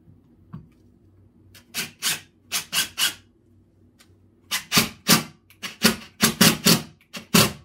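Cordless impact driver run in short, feathered trigger bursts, driving wood screws down through two stacked boards: a cluster of about five quick bursts, a pause, then about nine more.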